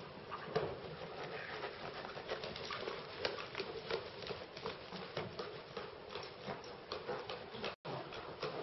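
Horse's hooves striking the sand footing of an indoor arena at a trot, a stream of soft, irregular patters and thuds, broken by a brief gap near the end.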